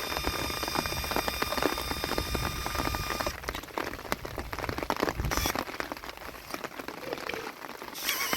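Rain pattering close by. For the first three seconds or so a small electric motor gives a steady high whine, the RC crawler's winch reeling in the line.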